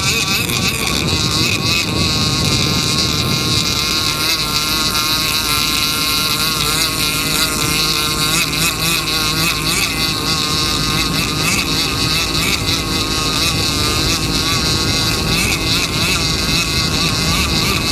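Radio-controlled King of Shaves gas boat's small gas engine running flat out, its high pitch wavering up and down without a break, over the low drone of the chase boat's engine and wind rush on the microphone.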